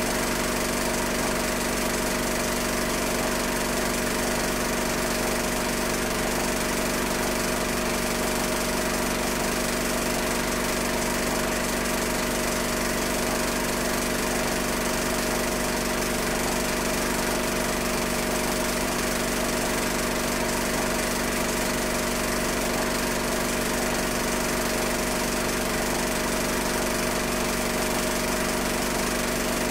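Steady mechanical hum and whirr of a film projector's motor running, with constant hiss, unchanged through the picture's cuts.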